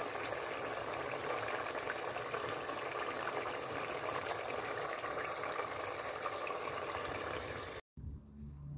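Curry simmering in a steel pot on the stove: a steady bubbling hiss with small pops. It cuts off suddenly near the end.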